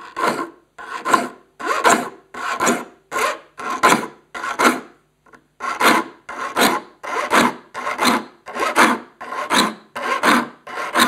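Saw file rasping across the steel teeth of a crosscut handsaw in steady strokes, about two a second, with a brief pause about five seconds in. This is a saw being sharpened to a crosscut, with the bevel filed on every other tooth.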